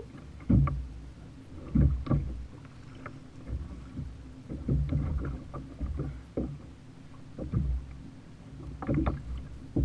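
Choppy sea water slapping and splashing against a fishing kayak's hull, a run of irregular knocks and splashes about a second apart over a low rumble.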